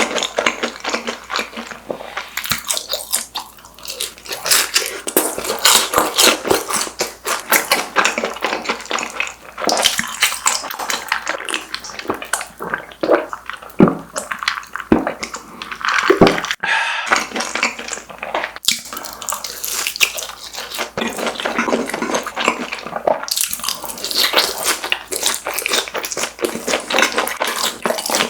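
Close-miked eating of fried snacks: crunchy bites and steady wet chewing and mouth sounds, with many sharp crackles.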